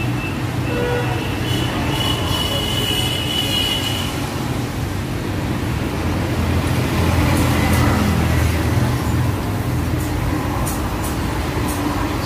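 Motor vehicle running along the street with steady traffic noise, a high whine early on, swelling to its loudest about eight seconds in as it passes.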